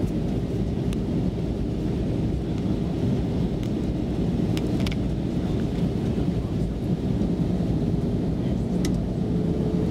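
Steady low rumble of an Airbus A320 cabin in flight, engine and airflow noise, with a faint steady hum and a few faint clicks.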